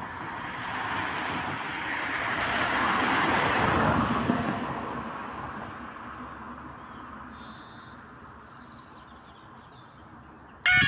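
A road vehicle passing, its noise swelling to a peak about four seconds in and then fading away. Right at the end, a loud electronic warble of repeating sliding tones cuts in abruptly: the level crossing's audible warning starting up.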